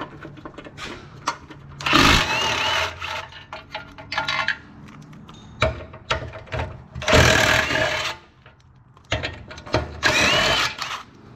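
A power tool run in three bursts of about a second each, backing out the bolts of a center support on the vehicle's underside. Each burst carries a brief rising-then-falling whine, and there are small clicks and knocks of tools and parts between the bursts.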